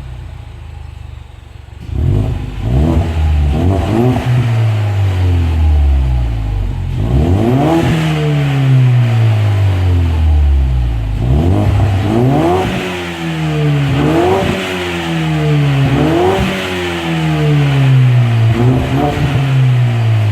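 Exhaust of a 2015 Ford Mustang EcoBoost's 2.3-litre turbocharged four-cylinder through a low-tone axle-back muffler. It idles for about two seconds, then the engine is blipped again and again, each rev climbing sharply and falling back slowly, with the blips coming quicker near the end.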